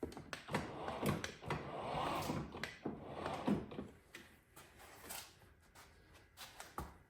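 Plastic rattling and knocks from a 24-volt kids' ride-on truck being backed up, with a rough rolling noise for the first few seconds, then fainter scattered clicks.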